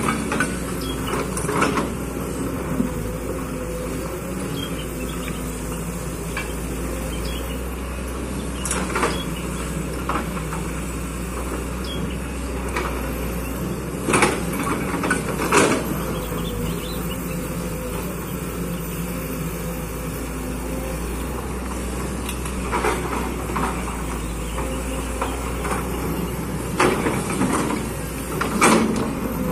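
Kobelco hydraulic excavator's diesel engine running steadily, with occasional short clanks and knocks as the machine works.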